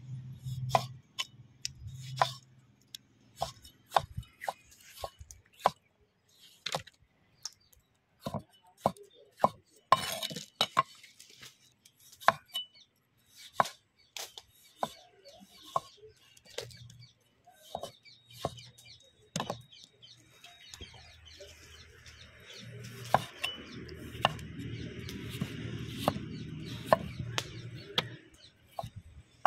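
Kitchen knife chopping and slicing tomato on a thick wooden cutting board: sharp, irregular knocks of the blade striking the wood, about one or two a second. Near the end the knocks give way to a few seconds of continuous rustling scrape.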